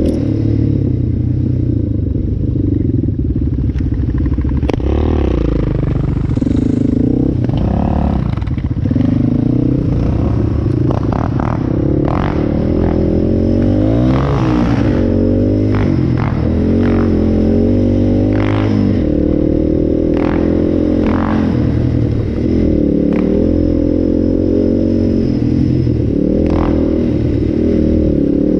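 Yamaha Raptor 700's single-cylinder four-stroke engine running as the ATV rides along, its note rising and falling with the throttle. Scattered clicks and knocks sound through it.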